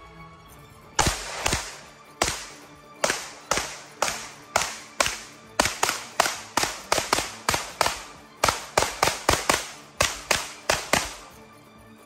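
B&T GHM9 9mm carbine firing about two dozen single shots, each with a short echo. The shots come roughly one every half second at first, then pick up to about three a second before stopping about a second before the end. Faint background music runs underneath.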